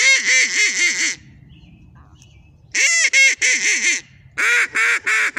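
Hand-held duck call blown hard by a beginner in three runs of rapid quacks, about six a second, each run lasting roughly a second. It is blown with too much force, with the caller's cheeks pumping.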